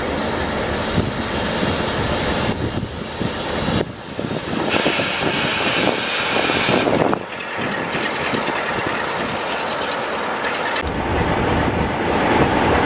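A train moving past close by: a steady, loud rush of wheel and rail noise that shifts in tone a few times.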